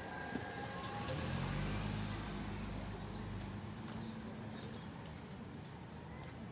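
A motor vehicle passing on a street: a low engine hum swells about a second in and fades away by about four seconds, over steady street background noise.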